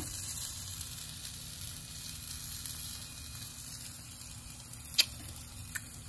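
Sauced pork shoulder sizzling on a grill grate, with one sharp pop about five seconds in.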